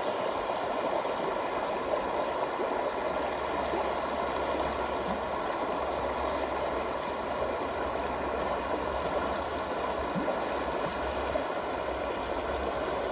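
The Rogue River's fast, cold water rushing steadily, an even unbroken sound of flowing water.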